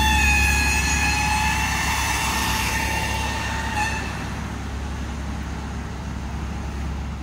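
Whistle of an S 3/6 steam locomotive held for about four seconds, dipping slightly in pitch and stopping with a short final blip, over the low rumble of the running train, which then slowly fades away.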